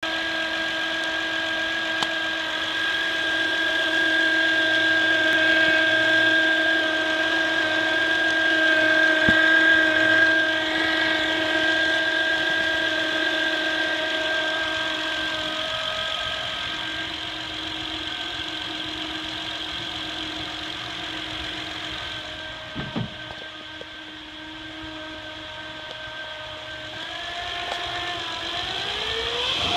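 2008 Honda Accord V6's alternator whining steadily over the running engine, several pitches at once; near the end the whine climbs in pitch. The whine comes from a failed diode in the alternator.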